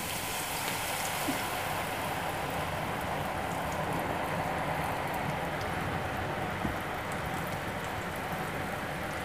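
Boondi (gram-flour batter drops) deep-frying in hot oil in a steel kadhai, a steady dense sizzle as more batter drips through a perforated ladle into the oil.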